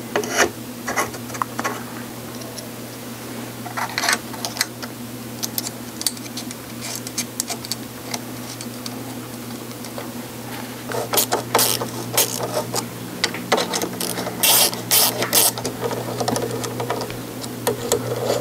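Clicks and light metal knocks of a rifle scope and its mount's ring tops being handled and fitted together, coming in clusters about 4, 11 and 14–15 seconds in. A steady low hum runs underneath.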